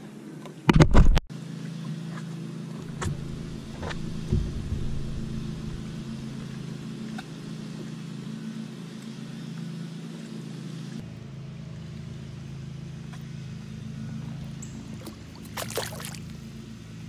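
Steady low hum of a bow-mounted electric trolling motor on a bass boat. A loud brief knock comes about a second in, and a short burst of water splashing comes near the end.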